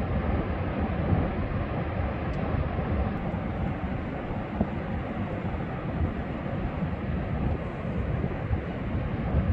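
Ocean surf and wind blending into a steady rush of noise, heaviest in the low end with an unsteady rumble underneath.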